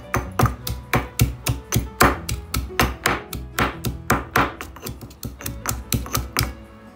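Stone pestle pounding chopped aromatics in a heavy black stone mortar: rapid, even strikes, about three to four a second, that stop shortly before the end. Background music plays underneath.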